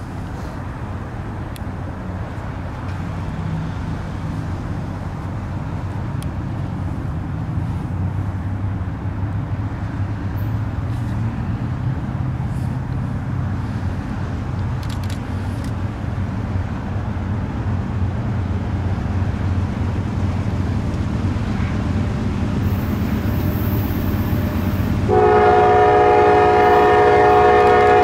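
Approaching loaded coal train: a low diesel locomotive rumble grows steadily louder. Near the end the lead GE AC44C6M locomotive sounds its Nathan K5LA five-chime horn in one long blast of about three seconds.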